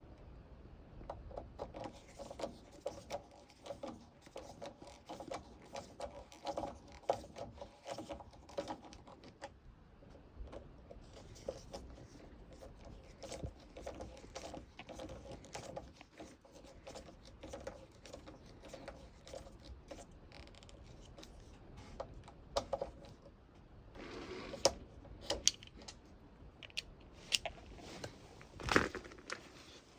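Irregular small clicks, taps and scrapes of door-lock hardware being handled and fitted by hand, with a screwdriver bit working on screws. The clicks grow denser near the end, with one louder knock.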